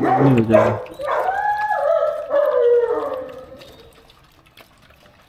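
Dog whining: a high, wavering, drawn-out cry that starts about a second in and fades out after about two and a half seconds.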